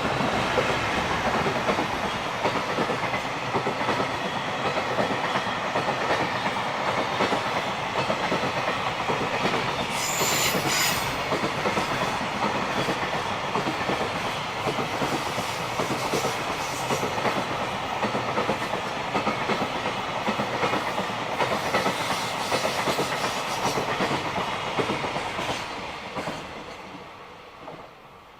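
JR Freight train passing on a curve, its long string of wagons rattling and clacking steadily over the rails. About ten seconds in, the wheels squeal briefly, and near the end the sound fades away as the train moves off.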